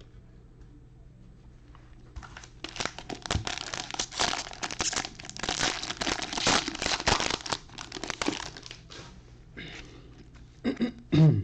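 Trading card pack wrapper crinkling as it is torn open and crumpled, for about six seconds. It ends with a brief vocal sound near the end.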